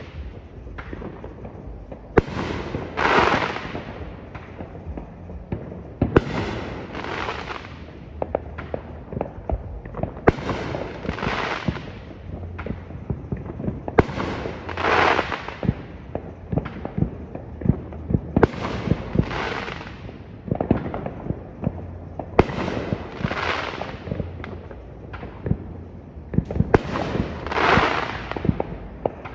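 Neighbourhood fireworks going off at night: many sharp pops and bangs, some close and loud, others distant. A rushing noise swells up and dies away about every four seconds.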